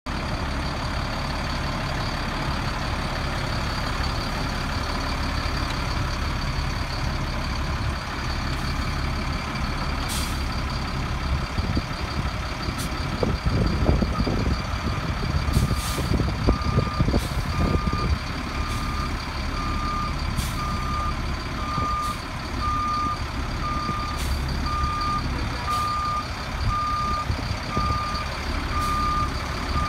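2004 Sterling Acterra flusher truck's Caterpillar C7 diesel engine running steadily, louder for a few seconds around the middle. From about halfway on, its backup alarm beeps about once a second as the truck is put in reverse.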